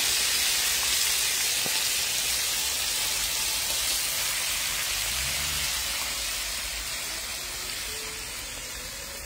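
Chicken pieces frying in a pan of hot oil: a steady sizzle that slowly fades toward the end.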